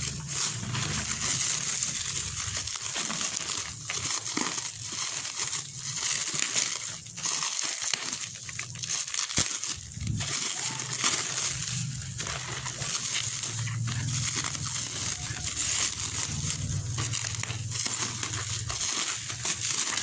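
Clear plastic stretch wrap crinkling and tearing as hands pull it off a parcel in a plastic mailer bag, a continuous uneven crackle with sharper rips now and then. A low hum comes and goes underneath.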